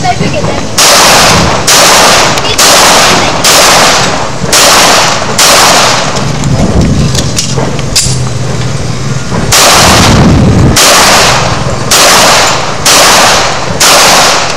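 A string of handgun shots, about one a second, each loud and short, fired during a practical pistol shooting stage. After about six shots there is a pause of about three seconds, then a longer loud stretch and several more shots.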